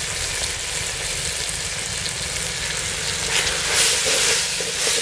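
Onions, tomatoes and whole spices sizzling in hot oil in a clay pot, with a heap of ginger-garlic paste just added to fry. A wooden spoon starts stirring and scraping through the pot about three seconds in, and the sizzle grows louder.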